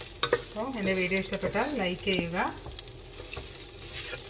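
Ivy gourd pieces sizzling as they fry in a nonstick pan, with the scrape and click of a wooden spatula stirring them. A voice is heard over it in the first couple of seconds.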